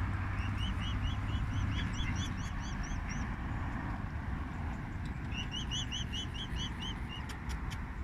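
Mute swan cygnet peeping: two runs of short, high peeps, about six a second, each lasting two to three seconds, over a steady low rumble.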